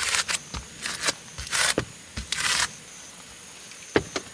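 Clear packing tape pulled off its roll in four or five short, rasping rips, then a single sharp knock about four seconds in.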